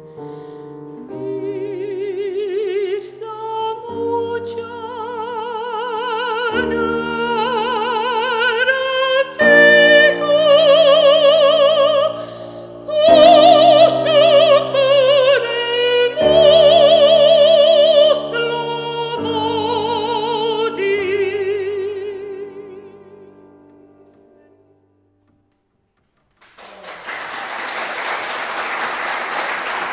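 Soprano singing an art song with grand piano accompaniment, her held notes carrying a wide vibrato, rising to loud high notes in the middle and then dying away. After a short silence, audience applause starts near the end.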